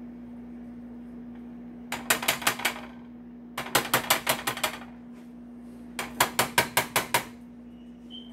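Silicone spatula knocking rapidly against a nonstick skillet while working melting butter, in three quick bursts of clicking taps, about six or seven a second. A steady low hum runs underneath.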